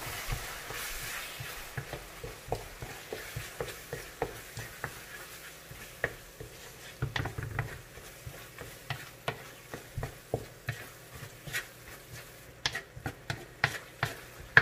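A cooking utensil stirring a simmering sauté of tomatoes, onions and garlic in a pan, scraping and tapping against the pan about twice a second. A soft sizzle fades out over the first few seconds.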